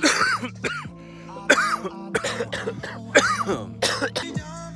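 A man coughing in a string of about six hacking fits after drawing on a joint, over steady background music.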